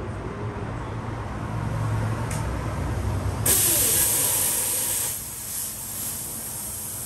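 A low hum, then about three and a half seconds in a sudden loud hiss of compressed air that eases after about a second and a half and goes on more quietly.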